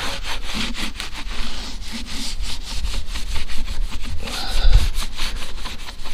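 Blue shop towel scrubbed hard back and forth on a rubber tire sidewall in quick, repeated strokes, rubbing off dried spray-on bedliner overspray.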